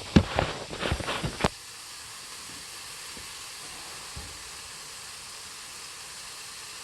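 A few sharp knocks and bumps as the camera is handled and set down during the first second and a half, then hamburger patties sizzling steadily in a frying skillet.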